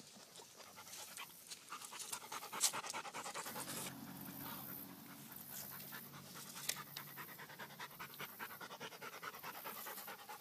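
A dog panting in quick, even breaths, out of breath after swimming out and hauling a big fish from the water.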